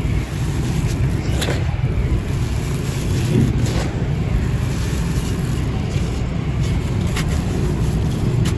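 Dry sand-ash or sand-cement texture crumbling, with a few separate crisp crunches over a steady low rumble.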